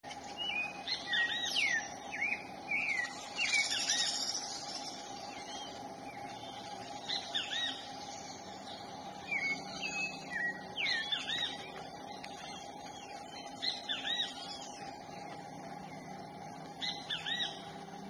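Birds chirping in bursts of short, quick up-and-down notes that come again every few seconds, over a steady background hum.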